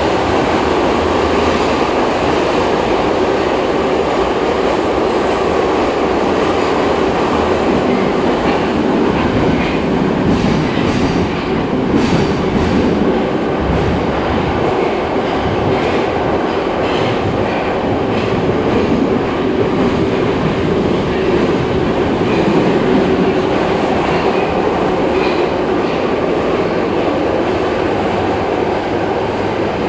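Moscow Metro 81-717/714-type subway car running at speed through a tunnel, heard from inside the car: a steady loud rumble of wheels and running gear. Sharp clacks from the rails cluster between about ten and seventeen seconds in.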